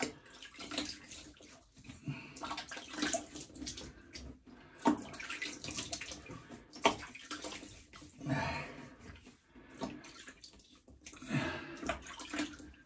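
Cold water splashed by hand in irregular bursts, with drips between, rinsing off after a wet shave.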